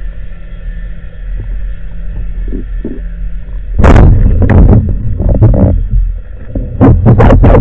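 Steady low underwater rumble, then a speargun fires about four seconds in with a loud, sharp crack. A quick run of sharp clicks and knocks follows as the shooting line pays out and the shaft travels.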